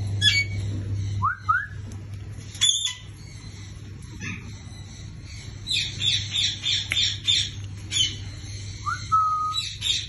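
African grey parrot calling: two short rising whistles, a sharp squawk, then a quick run of short chirps at about four a second, and a rising whistle near the end.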